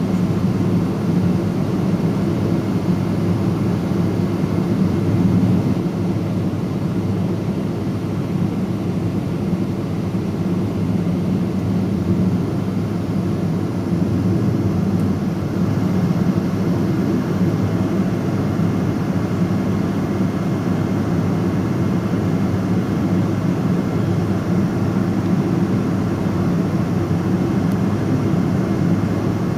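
Boeing 777-300ER's GE90-115B turbofan engines running at low taxi power, heard inside the passenger cabin as a steady drone.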